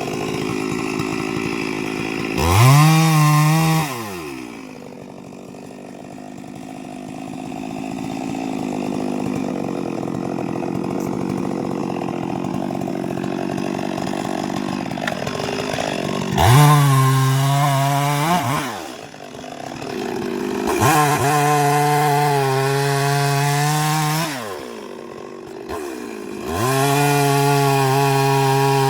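Two-stroke chainsaw revving to full throttle four times, dropping back to a low run between revs.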